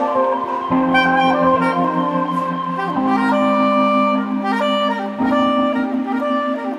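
Instrumental background music: a melody over held low chords that change about every two seconds.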